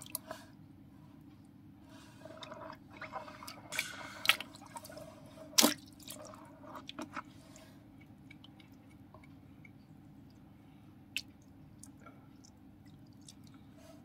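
Water splashing and dripping in a shallow tub as a hand scoops and releases small fish, with a cluster of splashes and drips in the first half and one more drip later, over a steady low hum.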